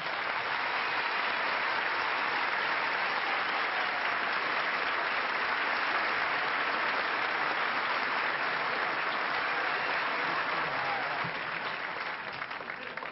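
Banquet audience applauding steadily, dying down near the end.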